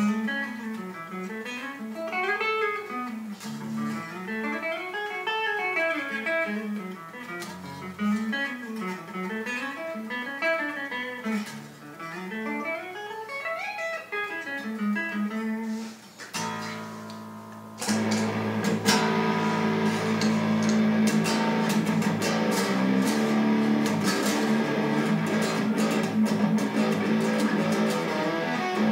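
Chapman ML7 seven-string electric guitar, tuned to drop A, played through an amp. Fast single-note runs rise and fall in pitch over a steady low note, then from about 17 seconds in it moves into a dense, sustained stretch of full chords.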